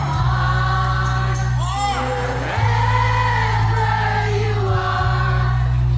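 Live singing over loud backing music through a sound system: the singer holds long notes over a heavy, steady bass.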